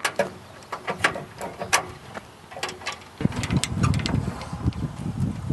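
Sharp metal clicks and clanks as the latch and clamp handle on a steel hitch bar are worked by hand. About three seconds in, low wind rumble on the microphone joins the clicks.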